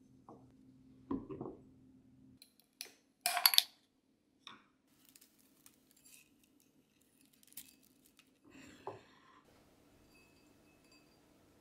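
Glass clinking sharply a few times a few seconds in, as a glass jar is handled on a wooden board, followed by faint rustling and soft handling noises.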